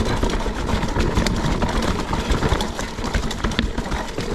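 Mountain bike rolling downhill over rough trail: a steady rush of tyre and rolling noise with many sharp clicks and knocks of the bike rattling over rocks and roots.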